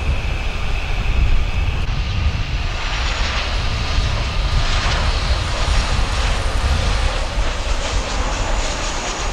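Jet airliner engines: a steady high whine stops about two seconds in, then the rushing noise of a Boeing 737 passing low on final approach fills out, over a constant low wind rumble on the microphone.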